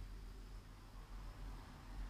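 Faint room noise: a steady low hum and light hiss, with no distinct sound events.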